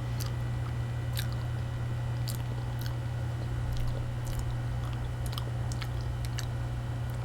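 A person chewing a mouthful of banana close to the microphone, with small wet mouth clicks scattered through, over a steady low hum.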